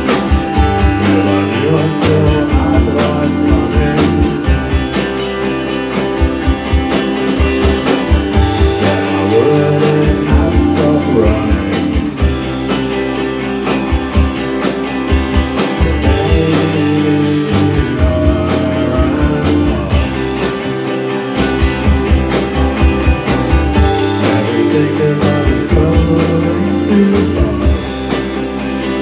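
A live rock band playing: electric guitar and keyboard over a drum kit keeping a steady beat.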